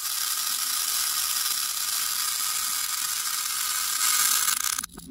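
Small beads scraping across a tabletop and rattling into a clear plastic cup as it is scooped through them, a dense steady hiss of many tiny pellets, loudest near the end. It breaks off just before the end with a short knock.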